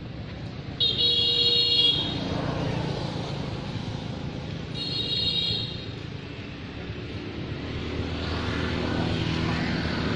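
A vehicle horn toots twice, each toot about a second long and about four seconds apart, the first the louder. Under it runs the low rumble of road traffic, which grows louder near the end.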